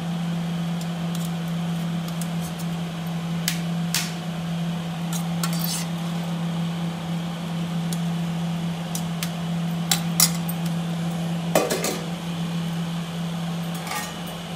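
Stainless steel serving spoon scraping and clinking against steel plates and bowls as cooked rice is served, with a handful of sharp clinks spread through. A steady low hum runs underneath.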